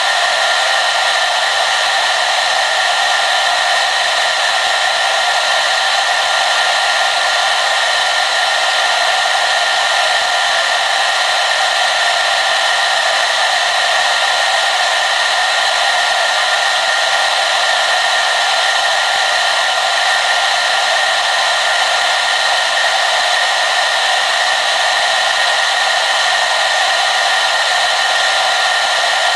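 Hair dryer running steadily at one setting: an even, unchanging rush of air with a faint whine.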